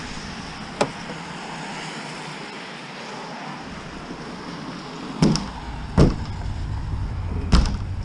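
An old steel refrigerator being tipped and manhandled, its spring-loaded door swinging open. There is a sharp click about a second in, then three loud metal bangs and thumps in the second half.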